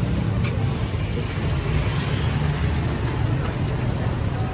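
A steady low rumble of street noise with an even hiss over it from the flat griddle where beef tikki kababs are frying, and a light metal spatula tick about half a second in.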